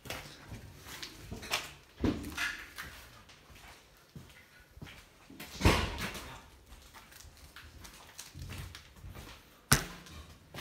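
Footsteps and scattered knocks inside an empty train carriage, with two sharp bangs, one about six seconds in and one near the end.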